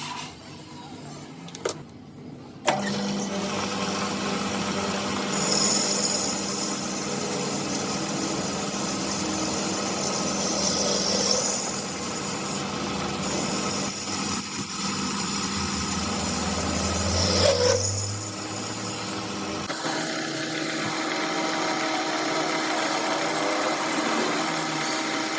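A workshop machine's electric motor switches on with a click about three seconds in and then runs steadily with a constant hum. Near the end the sound shifts to a different steady tone.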